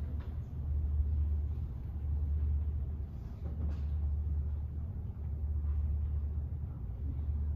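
Steady low rumble of room noise, with a few faint rustles of cloth as a white linen cover is lifted and folded back from a communion table, the clearest about three and a half seconds in.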